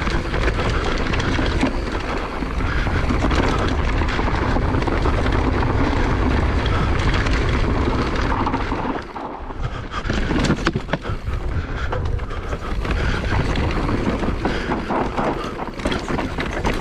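Mountain bike riding fast down a rough, bumpy dirt trail: steady wind noise on the GoPro's microphone over tyre noise on dirt and stones, with the bike clattering over bumps. The noise drops briefly about nine seconds in.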